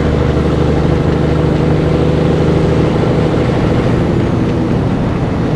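Diesel engine of a 1984 Peterbilt 362 cabover truck running steadily with road noise as the truck rolls, its engine note easing off about four and a half seconds in.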